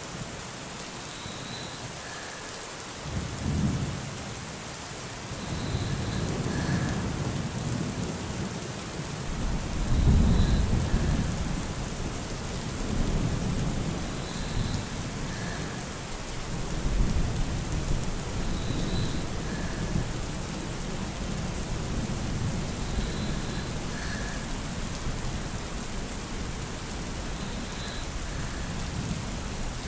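Steady rain with rolling thunder. Deep rumbles swell a few seconds in, peak about ten seconds in, and come again around thirteen and seventeen seconds before settling into a steady downpour.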